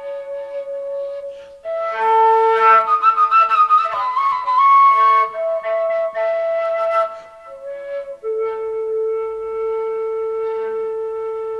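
Slow dark folk ambient music led by a flute playing long held notes over layered sustained tones, busier for a few seconds and then settling on one long low held note about eight seconds in.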